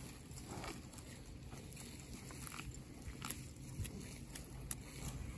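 A cow grazing close up: irregular short tearing and crunching sounds as it bites off and chews grass.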